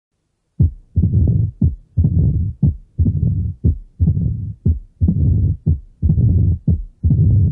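Simulated heart sounds with a murmur, about one beat a second. Each cycle has a short sharp heart sound and a longer rushing murmur, starting about half a second in.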